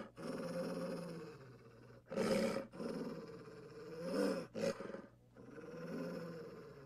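Cartoon wolf's growling sound effects: a low snarling growl that swells and fades in waves, with louder snarls about two seconds in and twice more around four seconds in.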